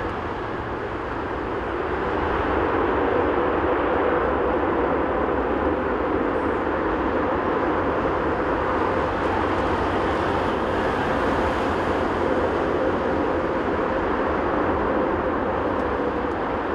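Boeing 787-8 airliner's GEnx turbofan engines running loud and steady on the landing rollout, the noise swelling about two seconds in and then holding, with a faint steady whine underneath.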